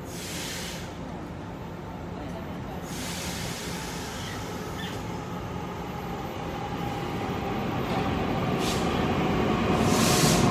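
Electric commuter train pulling out of an underground station platform, its rumble and motor whine growing steadily louder as it gathers speed. Short bursts of air hiss come near the start, about three seconds in, and twice near the end.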